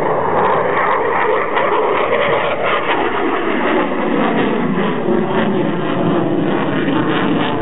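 Eurofighter Typhoon's twin EJ200 turbofan jet engines, heard from the ground as the fighter climbs steeply in an aerobatic display. The engine noise is loud, steady and rough, with a crackling edge.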